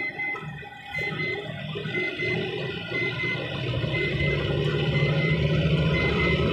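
Volvo FH12's D12 diesel engine, driven: off the throttle and quieter for about the first second, then pulling under load as the throttle opens, its low drone building and growing strongest from about four seconds in.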